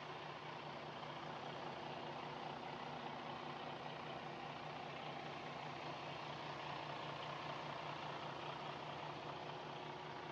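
Detroit DD15 inline-six diesel engine idling steadily, an even low hum with a constant rush of engine noise over it.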